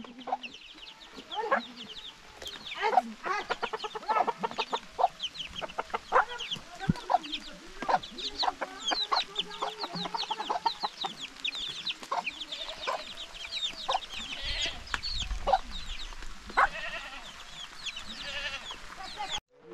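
A flock of chickens feeding: chicks peeping, with many short high peeps in quick succession, over the lower clucking of hens.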